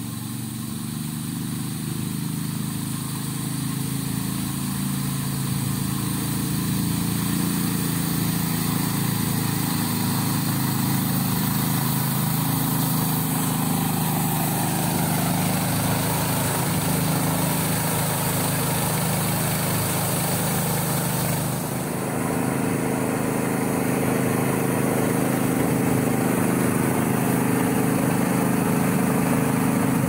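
Remote-control tracked orchard sprayer running steadily: a small engine hum under a continuous hiss from its mist blower. It grows louder over the first several seconds as the machine comes closer, dips briefly about two-thirds of the way in, then runs on steadily.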